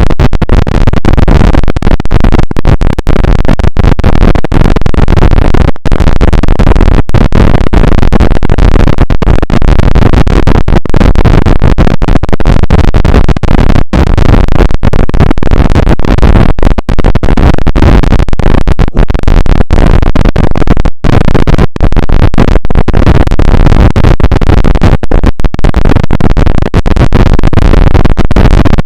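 Loud, heavily distorted rumbling and crackling noise with no tune, cut by many brief dropouts to near silence.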